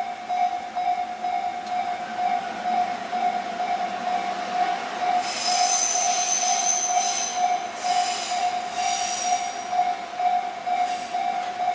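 Japanese level crossing warning bell ringing steadily, about two strikes a second, as an Echizen Railway MC7000-series electric train passes. About five seconds in, a high-pitched squeal from the passing train comes in three stretches over about four seconds.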